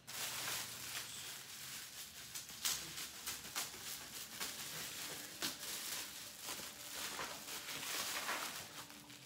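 Tissue paper and shiny crinkly wrapping being handled and pulled apart: a continuous rustle with many irregular small crackles.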